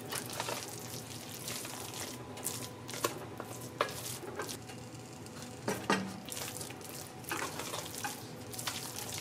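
Wooden spoon stirring and scraping thick mashed pumpkin in an enamelled pot, in irregular soft scrapes and knocks, with a faint sizzle of the pumpkin cooking underneath.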